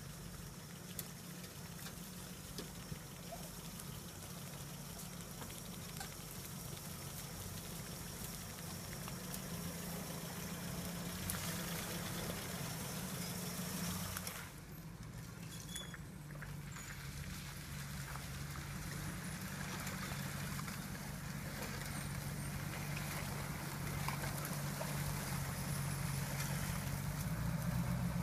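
Engines of Land Rover 4x4s, a Series and a Discovery, running steadily at low revs as they crawl along a flooded trail, with some water trickling around the wheels. The sound drops briefly about halfway through, then grows louder toward the end as a vehicle comes close.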